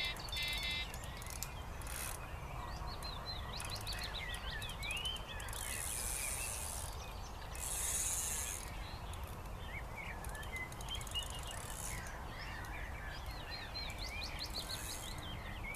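Carp reel's drag ratcheting in two bursts, about six and eight seconds in, as a hooked carp takes line during the fight after a run. Birds chirp throughout, and the electronic bite alarm beeps briefly at the very start.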